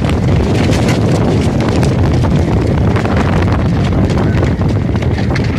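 Wind buffeting the phone's microphone as a heavy low rumble, with many irregular sharp clicks and knocks over it.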